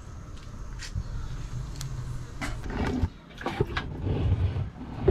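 Camera handling noise: a steady low rumble, then a cluster of knocks and rubbing as the camera is picked up and set down, ending in a sharp click.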